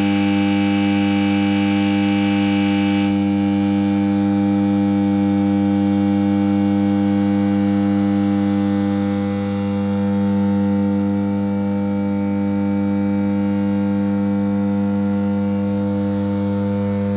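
Substation power transformer humming: a loud, steady, low electrical hum with a stack of higher tones above it that does not change.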